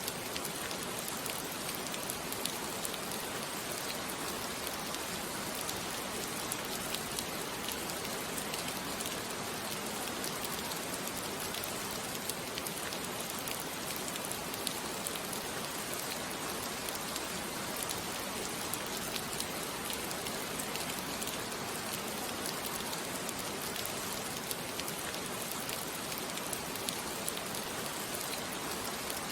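Steady rain falling, a dense even hiss with scattered small drop ticks.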